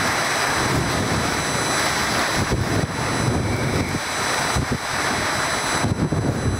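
Wind buffeting the camera microphone: a steady rushing noise with uneven low rumbling gusts.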